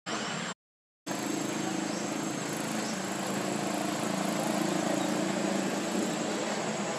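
Steady motor drone, a low hum with a thin high whine above it, broken by a half-second dropout to dead silence just after the start.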